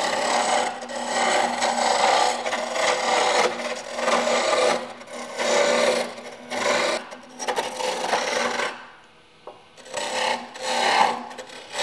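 A woodturning gouge cuts into a chair-leg blank spinning on a lathe, a rough rasping hiss of chips tearing off as the bulk of the wood is roughed away. It comes in several passes with short breaks between them, and a longer lull falls about nine seconds in.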